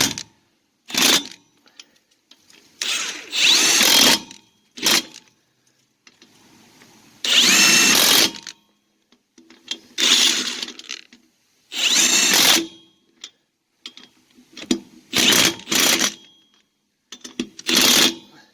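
Kobalt 24 V brushless 1/2-inch cordless impact driver run in about nine short trigger bursts, spinning lug nuts onto a wheel's studs.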